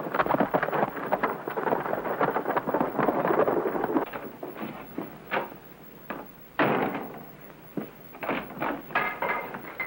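Horse-drawn wagon setting off: a fast, irregular clatter of hooves and wheels. It thins out after about four seconds into scattered single knocks, with a second short run of clatter about two-thirds of the way through.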